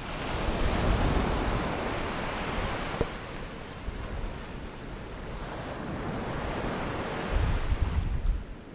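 Surf breaking and washing up a sandy beach, swelling twice, with wind buffeting the microphone near the end.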